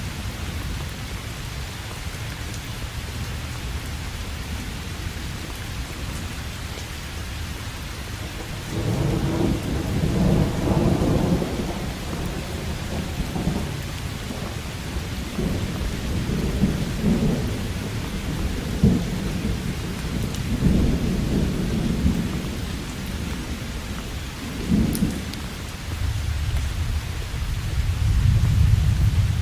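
Steady rain with rolling thunder: a continuous hiss of rainfall, and several low rumbles of thunder that swell and fade, the first starting about a third of the way in and a long one near the end.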